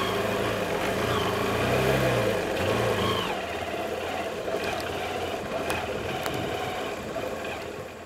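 Motorcycle engine revving twice, rising and falling about two and three seconds in, then running more steadily and fading away near the end.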